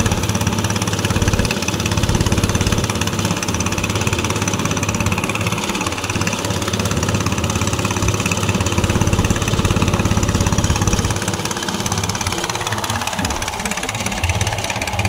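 Small engine of a wooden fishing boat running steadily under way, a constant low drone that eases slightly shortly before the end.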